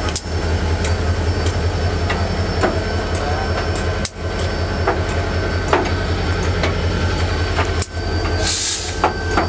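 Norfolk & Western 611, a J Class 4-8-4 steam locomotive, standing under steam: a steady low rumble with a faint thin whine over it. A short hiss of steam comes near the end.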